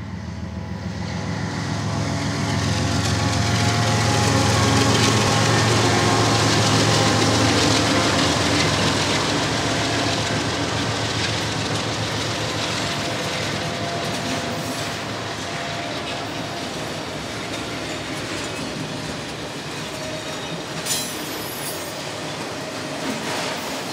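BNSF diesel freight locomotives pass close by, their engines humming loudest a few seconds in. Autorack freight cars follow, rolling past with a steady rumble of wheels on rail. About 21 seconds in comes a brief high wheel squeal.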